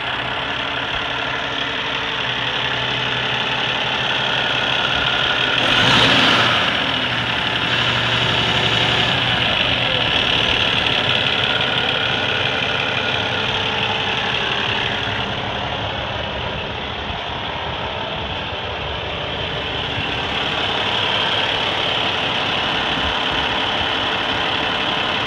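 Peterbilt heavy truck's diesel engine idling steadily, heard close at the open engine bay, with a brief louder rush of noise about six seconds in.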